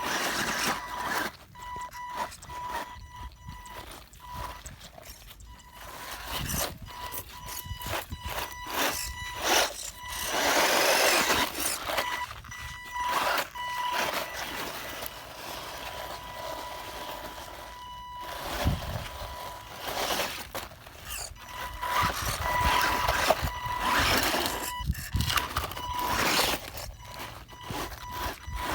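Electric FY03 RC off-road truck driving over dirt and rocks, with irregular bursts of tyres scrabbling and gravel crunching. A steady high electric whine cuts in and out as the throttle is worked.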